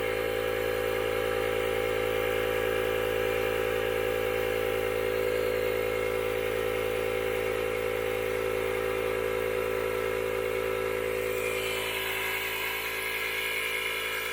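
A motor running steadily with an even tone. About eleven seconds in, its sound shifts, becoming brighter and higher.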